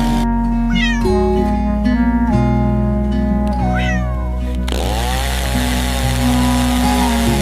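Background music with held, steady notes, with cat meows laid over it, one near the start and another around the middle. An even hiss joins the music a little past halfway.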